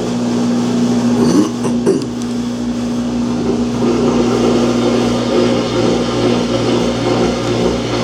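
Samsung washing machine running on its spin cycle: a steady electric motor hum with a rumble underneath, the drum not getting up to spin speed, a spin fault that keeps the machine from completing its cycle.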